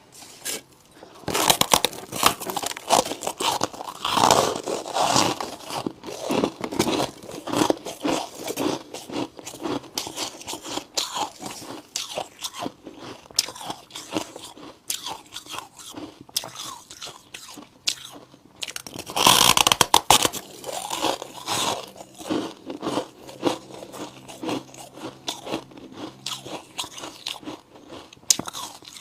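A person biting into and chewing chunks of white humidifier ice, with dense crunching. There are louder clusters of bites early on and again about two-thirds of the way through, and lighter, steady chewing crunches in between.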